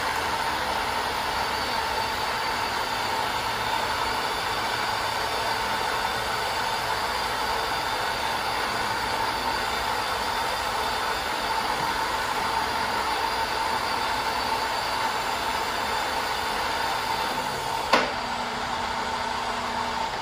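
Rockwell 24-inch geared-head drill press running free with no workpiece, its motor and gearhead giving a steady mechanical hum. A single click comes near the end, after which a lower hum joins in.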